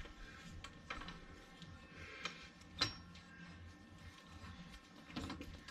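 Faint, scattered clicks and light knocks from work under the car as the fuel tank is jacked up and fitted, with one sharper knock nearly three seconds in.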